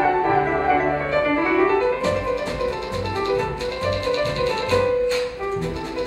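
Light classical instrumental music with piano and bowed strings playing a brisk melody over a bass line. About two seconds in, a rapid run of sharp, evenly spaced clicks joins it.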